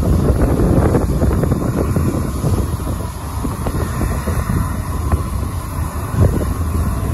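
Jet engines of a large aircraft passing low overhead: a loud, steady, deep rumble with crackle, easing slightly after about two seconds, with wind buffeting the microphone.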